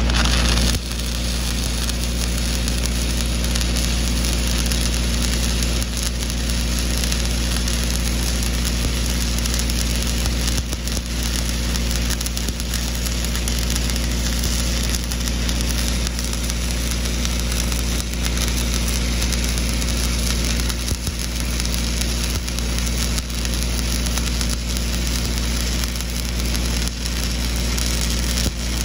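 Stick (shielded metal arc) welding: the arc crackles and sizzles steadily as the rod burns. Under it runs a steady low hum from the engine-driven Lincoln welding machine.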